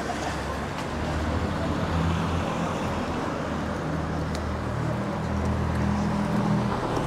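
Road traffic: motor vehicle engines running with a steady low hum that shifts in pitch, over a even background rumble.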